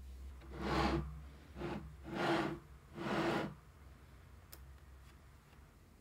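Four short rubbing swishes, each swelling up and dying away within about half a second, the second and third close together, over a faint steady hum.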